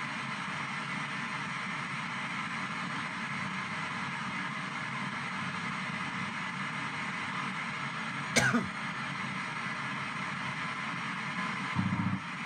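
P-SB7 ghost box radio sweeping down the FM band in reverse, its speaker giving a steady hiss of static. A short loud burst with a falling pitch cuts through about eight seconds in, and another louder, lower burst comes just before the end.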